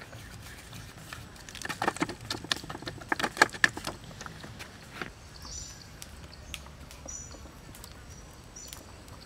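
Hands patting and pressing a raw, split-open chicken on a plastic tray: a run of quick slaps and taps from about one and a half to four seconds in. After that, a bird gives short high chirps several times.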